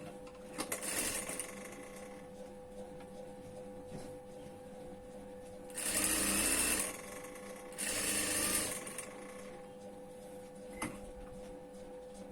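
Sewing machine stitching a band collar onto a neckline in three short runs of about a second each, the middle one loudest, with a steady hum between runs.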